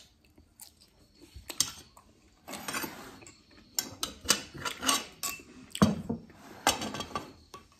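Metal fork clinking and scraping against a ceramic plate in a series of irregular clicks and short scrapes as food is cut and picked up.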